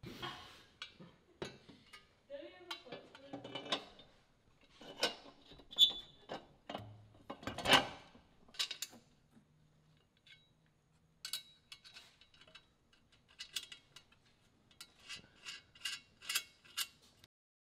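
Metal clanks, knocks and scrapes from a steel exhaust downpipe being lifted into place under a car and fitted up to the exhaust flanges by hand, with two sharp clanks partway through. It ends with a run of quick light clicks.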